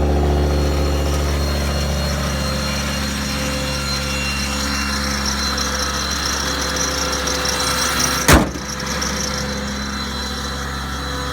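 Ford F-550's V10 gas engine idling steadily, with one sharp, loud knock about eight seconds in.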